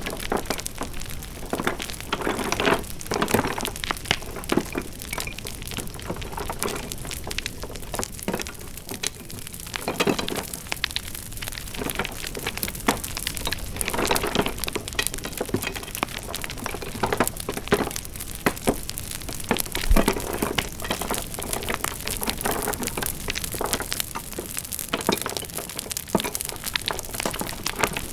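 Wood fire crackling: a steady hiss thick with irregular pops and snaps, some louder than others.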